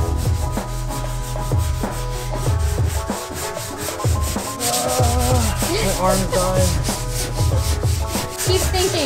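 Background music with a steady beat and a singing voice coming in about halfway, over the rhythmic rubbing strokes of hand sanding on car bodywork.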